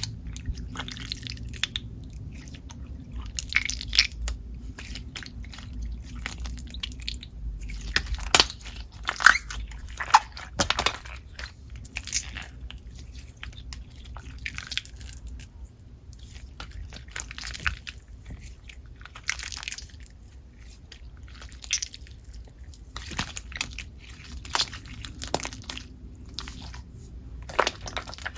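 Hands squeezing and stretching a glossy, jiggly super stretch slime, giving irregular sloshy, slimy squelches with small sharp crackles rather than clear clicks or bubble pops.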